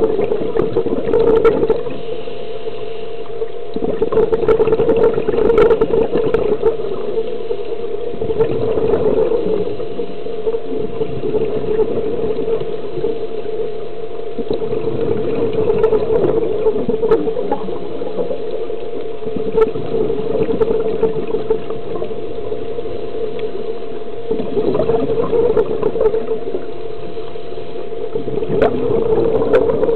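Scuba diver breathing through a regulator underwater: a gurgling rush of exhaled bubbles comes every four seconds or so and lasts a second or two, over a steady low hum.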